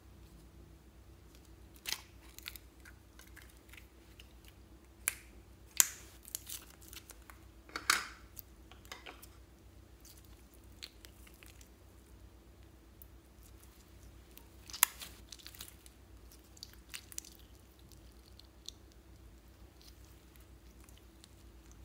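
Slime squeezed and stretched by hand, making wet, sticky clicks and pops as it pulls apart and air pockets burst, with quieter squishing between a handful of sharper pops.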